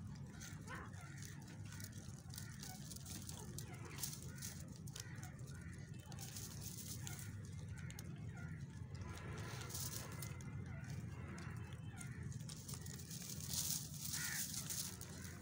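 Dry straw rustling and crackling as a young rabbit moves and nibbles in it, a little louder near the end, over faint outdoor background with distant voices and bird calls.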